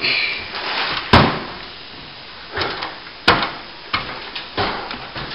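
Plastering tools working a ceiling cornice: short scraping and smoothing strokes, with two sharp knocks, one about a second in and one about three seconds in.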